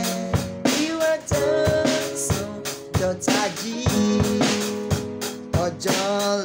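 Electronic keyboard and drum kit playing together: sustained keyboard chords and a melody line over a steady drum beat.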